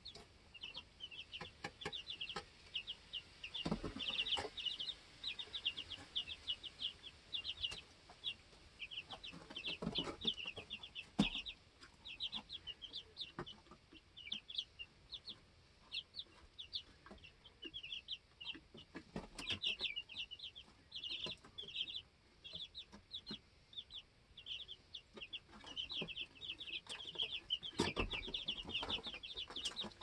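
A brood of two-week-old chicks peeping without pause, many short high chirps overlapping. A few knocks and scuffles stand out now and then, loudest about eleven seconds in and near the end.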